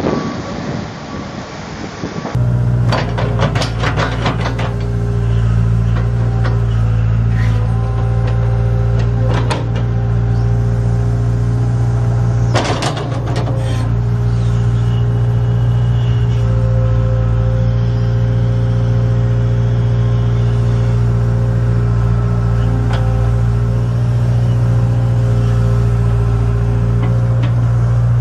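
Diesel engine of a tracked hydraulic excavator running steadily, with a few sharp metal clanks from the machine about a second in and again about halfway. Before that, for the first two seconds, wind buffets the microphone.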